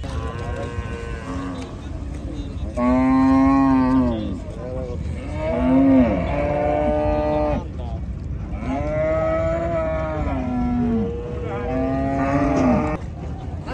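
Cattle mooing: a faint moo at the start, then four loud, drawn-out moos one after another, each lasting about one and a half to two and a half seconds.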